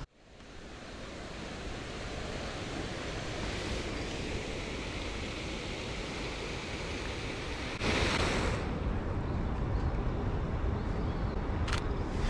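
Steady outdoor city street ambience: a wash of noise with no distinct events. It fades in at the start and steps up louder about eight seconds in.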